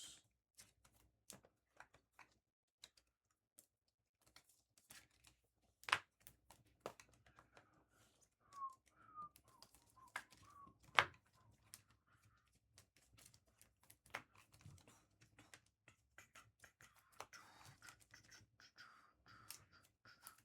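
Trading cards being handled and sorted by hand: faint scattered clicks and taps of card edges, with two sharper snaps about six and eleven seconds in and brief soft rustling.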